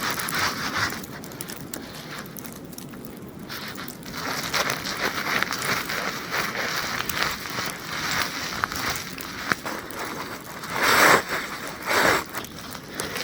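Sleeping pad being pulled up off snow and ice: continuous rustling, crinkling and scraping, with a few louder scrapes about eleven seconds in.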